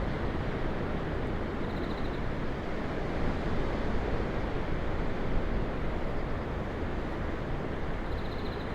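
Ocean surf: a steady rushing wash of waves with a heavy low rumble, swelling slightly now and then.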